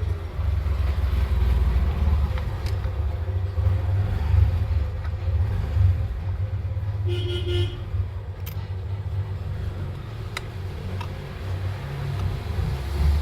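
Low, uneven rumble of road traffic, with a short vehicle horn toot about seven seconds in and a few faint sharp clicks afterwards.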